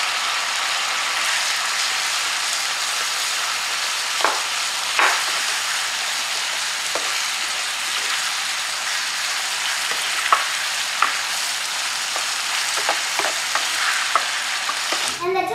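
Tofu cubes in sambal sauce sizzling steadily in a frying pan while being stirred with a spatula. A few short scrapes and taps of the spatula against the pan come through the sizzle.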